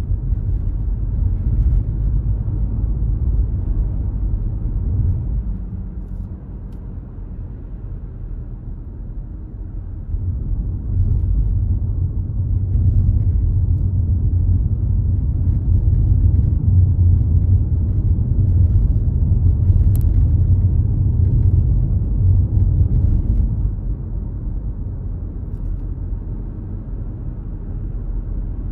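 Low, steady rumble of a car on the road, louder for a stretch in the middle.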